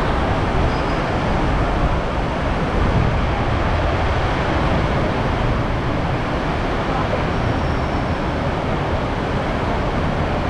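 Heavy rain falling, a loud, steady, even rushing noise, over a low rumble that may include traffic.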